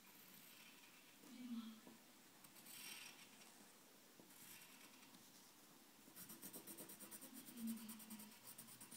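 Pencil scratching on paper as lines are drawn, faint, turning about six seconds in into a fast run of short back-and-forth strokes. Two brief low hums stand out, about a second and a half in and near the end.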